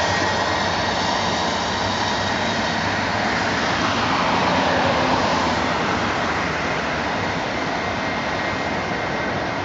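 Boeing 757-200 airliner on final approach, its jet engines making a steady rushing noise with a thin high whine, swelling slightly about four to five seconds in.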